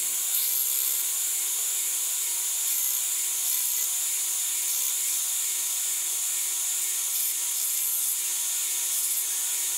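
Belt sander running, a steady hiss from the moving abrasive belt with a faint even hum. It is being used to smooth the sharp edges of a cut-out steel knife blank.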